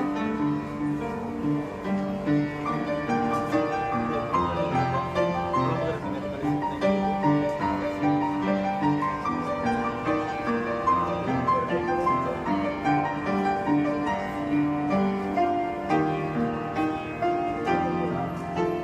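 Instrumental music led by piano, in a classical style, with a steady, even rhythm of notes.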